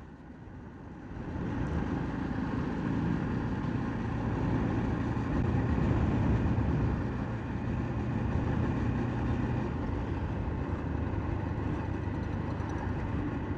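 Bajaj Dominar 400's single-cylinder engine running as the motorcycle is ridden on an open road, with road and wind noise. It grows louder about a second in, then holds steady.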